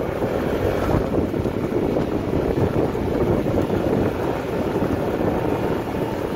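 Wind buffeting the microphone over a small Evinrude outboard motor running steadily as the pontoon boat moves through choppy water.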